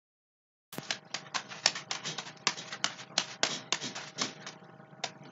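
Juggling balls smacking into the hands as they are caught and tossed: a quick, irregular run of sharp taps, about five a second, starting just under a second in.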